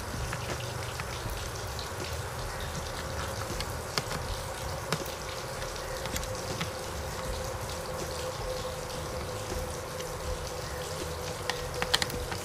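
Steady background hiss with a faint hum, and a few light clicks as a screwdriver tightens screws into the outboard's plastic timer base plate, a cluster of them near the end.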